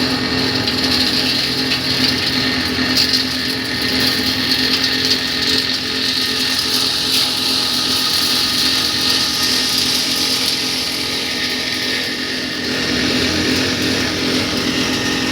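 Road-repair machine running steadily: a constant hum with a high, grinding whine on top.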